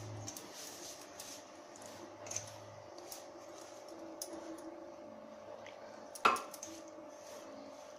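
Hands mixing and kneading crumbly flour dough in a steel plate: soft, irregular rubbing and squishing. About six seconds in there is a single sharp metal clank from a steel utensil, the loudest sound.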